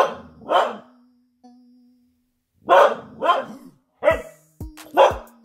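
Siberian husky barking, about six short barks: two at the start, a pause of about two seconds, then a quicker run of barks. It is barking at a foil helium balloon.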